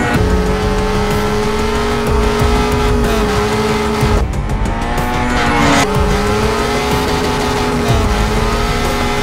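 Racing engines of an Ariel Atom (Honda K24 2.4-litre four-cylinder) and a Polaris 800 Rush snowmobile (795cc two-stroke twin) held at high revs under full acceleration. The sound is a steady high engine note with small dips in pitch, cutting abruptly between engines about four and six seconds in.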